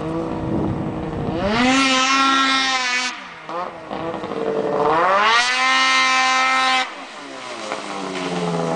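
Snowmobile engine through an MBRP aftermarket exhaust can, revving hard twice. Each time the pitch climbs, holds for a second or two, then drops off sharply as the throttle is released.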